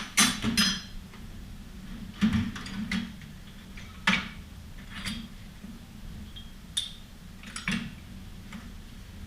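Metal brake parts and hand tools clinking and knocking as they are handled, about eight separate sharp clinks spread irregularly, over a steady low hum.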